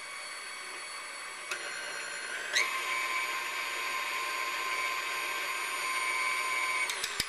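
KitchenAid stand mixer motor running with the dough hook turning through dry flour, sugar and salt, a steady whine. There is a click about a second and a half in, and about two and a half seconds in the whine steps up in pitch and gets louder. The mixer is switched off near the end.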